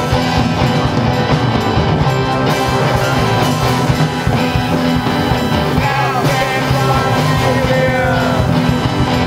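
Dark synth-punk band song playing, with drums, bass, guitar and synth. Several falling gliding notes come in about six to eight seconds in.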